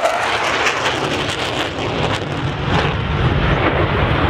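Jet noise from a Panavia Tornado GR4 flying low and climbing away after its attack run: a loud, steady rushing noise whose deep rumble grows stronger about two seconds in.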